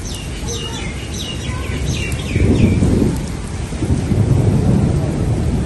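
Steady rain with two low rumbles of thunder, the first about two seconds in and the second about four seconds in. A bird chirps several times in quick short falling notes during the first two seconds.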